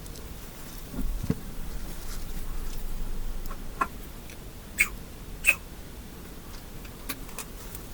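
Hands and small tools working on a laptop during disassembly. There is a low thump about a second in, then a few sharp clicks and short squeaks.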